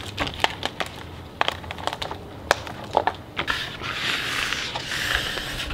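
Crackling and crinkling of adhesive vinyl being peeled off its backing by hand while weeding a cut sticker: many small sharp crackles, then a steadier rustling hiss for the last couple of seconds.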